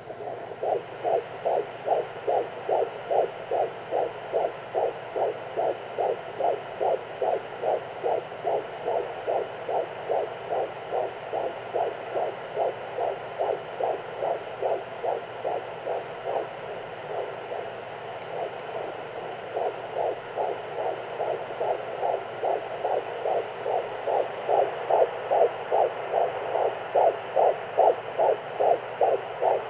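Fetal heartbeat at 14 weeks picked up by a Doppler monitor: a fast, even train of whooshing pulses, about two and a half beats a second, over a steady hiss, growing louder in the last few seconds.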